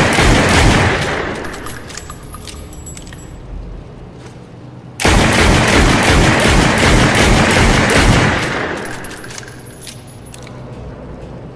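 Colt King Cobra revolver gunfire sound effect: a rapid string of shots with a long echoing tail that fades over several seconds, then a second string starting suddenly about five seconds in and dying away the same way. Faint high metallic ringing follows each string.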